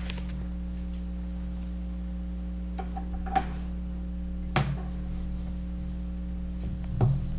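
Steady low electrical hum in the room's audio feed, with three short clicks or knocks from around the table.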